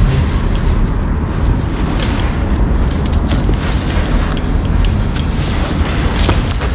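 Someone crawling on gritty concrete under a wire-mesh construction fence panel: clothing rustling and scraping on the ground over a continuous low rumble, with scattered light clicks and rattles from the mesh.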